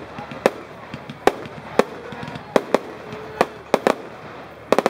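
Aerial fireworks going off in quick succession: about ten sharp bangs at uneven intervals, with several close together near the end.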